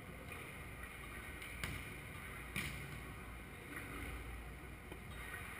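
Steady low rumble of a large indoor hall, with two sharp slaps of hands hitting a volleyball, about a second apart, a little before the middle.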